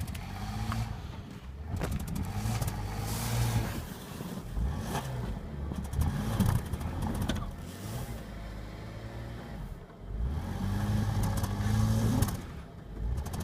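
Jeep Wrangler engine revving up and easing off several times over, its pitch rising and falling under load.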